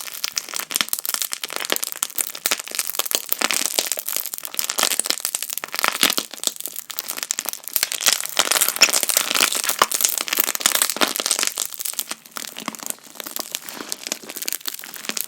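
Inflated clear slime being pressed and worked, giving a dense, rapid run of loud air-bubble pops and crackles, sped up.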